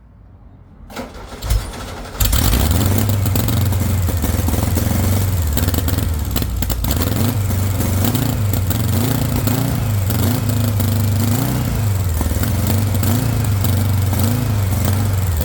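Straight-piped VW engine cranking on the starter, catching about two seconds in and running loud, its revs rising and falling. It runs on starting spray because the fuel pump is not yet delivering fuel, which the owner suspects is a bad pump.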